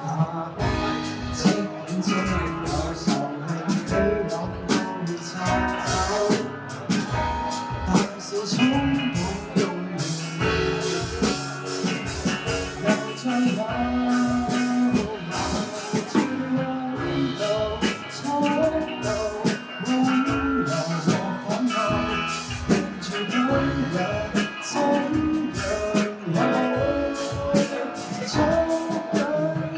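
Live band playing a Cantonese pop song: singing over guitar and drum kit.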